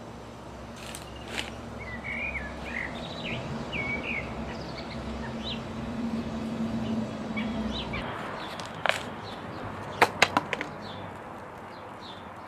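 A songbird singing several short warbled phrases over a low steady hum that cuts off about eight seconds in. Near the end, a quick run of sharp clicks and cracks, the loudest sounds, as the trailing petunia is worked out of its plant pot.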